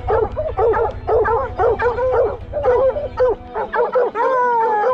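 Several hounds on a UTV's dog box baying together in quick, overlapping bawls, with one long falling howl near the end: hounds striking on bear scent from the rig.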